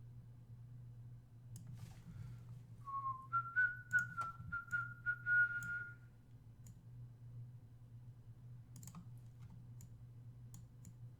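A person whistling a short run of notes for about three seconds, the pitch stepping up after the first note, with a few sharp computer-mouse clicks before and after. A steady low hum sits underneath.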